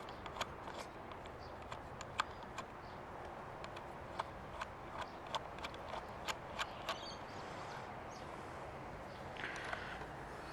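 Irregular light clicks and taps of small metal parts and tools being handled while the adjustable clutch lever is fitted into its perch on the handlebar, thinning out after about seven seconds, with a brief scrape near the end.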